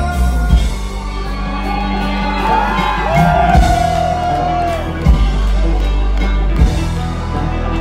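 Live band playing, with a banjo soloing over bass and drums. A whoop from the crowd rises about three seconds in.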